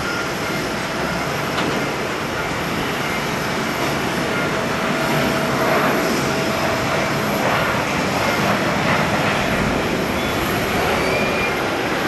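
Airbus A320neo airliner's jet engines running: a steady, loud rush of engine noise that swells a little past the middle, with a faint whine.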